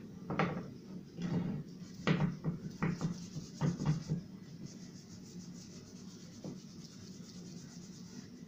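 Stiff bristle brush scrubbing wood stain into a bare wooden board: a quick run of short rubbing strokes for about four seconds, then softer, quieter brushing.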